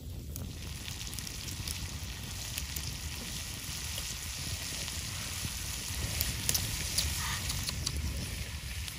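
Cooking oil sizzling on a fire-heated stone, with chopped garlic and red chillies frying in it; a steady hiss with many fine crackles sets in just after the oil is poured and gets a little louder later on.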